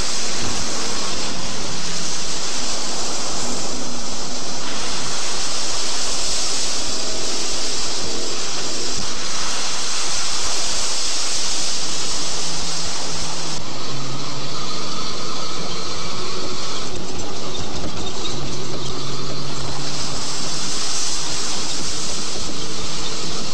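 Army truck driving through mud and standing water: the engine runs under a steady hiss of tyres churning and splashing. The hiss eases about 14 seconds in and then picks up again.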